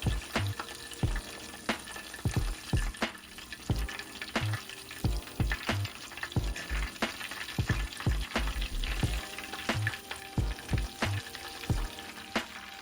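Chicken donuts frying in hot oil with a steady sizzle, broken by frequent sharp taps and knocks about twice a second as they are stirred or turned in the pan.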